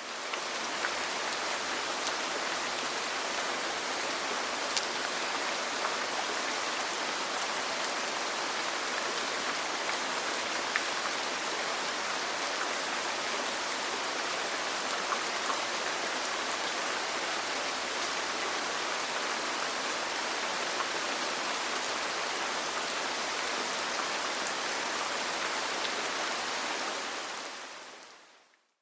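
Steady rain falling on a roof: an even hiss with scattered drop ticks. It fades in at the start and fades away over the last couple of seconds.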